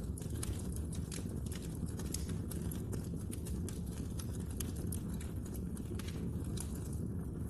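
Wood fire burning in a fireplace, the logs crackling with many irregular sharp pops and snaps over a steady low rumble of the flames.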